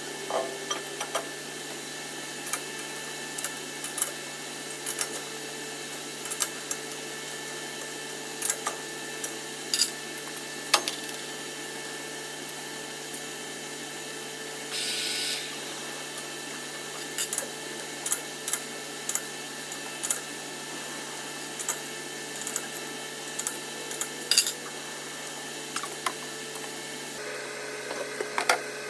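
Steady hum of a running workshop machine, with scattered sharp clicks and taps throughout and a brief hiss about halfway through.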